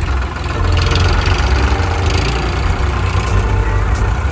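Eicher 557 tractor's diesel engine idling steadily with a deep, even rumble.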